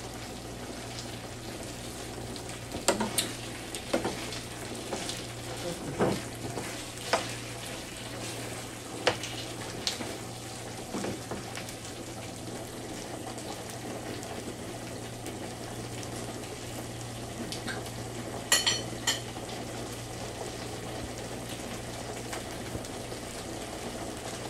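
Tofu in a cream sauce sizzling and simmering in a nonstick frying pan over a gas flame, with a spoon now and then clicking and scraping against the pan as it is stirred, several times in the first half and twice close together later on.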